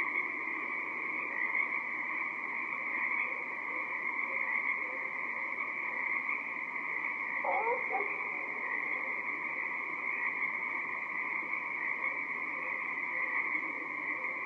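Dense chorus of Pacific tree frogs calling steadily, many voices overlapping. About seven and a half seconds in, a single short, lower call rises in pitch over the chorus.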